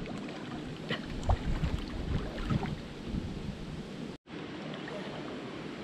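Wind buffeting the microphone over moving water, with irregular low thumps in the first few seconds. The sound cuts out for a moment about four seconds in.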